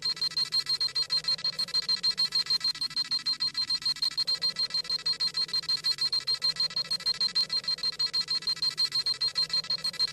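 Dragon Ball Z scouter sound effect: a rapid, steady electronic beeping, about seven high-pitched beeps a second, as the scouter reads a power level.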